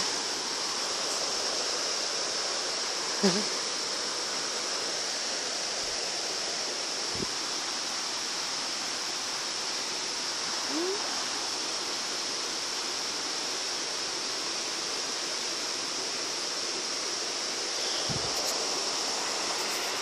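Steady rush of river water running over rocks and spilling down a small waterfall into a pool. A short call stands out briefly about three seconds in.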